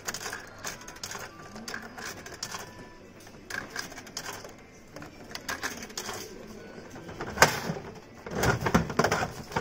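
100-yen coins dropped one by one into a gachapon capsule-toy machine's coin slot, each giving a small metallic click. Near the end the crank dial is turned and ratchets with a loud burst of rapid clicking.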